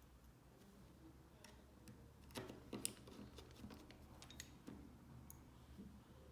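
Faint, scattered clicks and taps from small metal tools and parts on an iPhone 6 being closed up after a screen replacement, with a short cluster of clicks a little before the middle.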